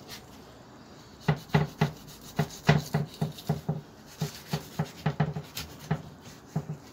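Knife cutting along the back of a golden trevally on a cutting board: a run of short rasping strokes, about three a second, starting a little over a second in.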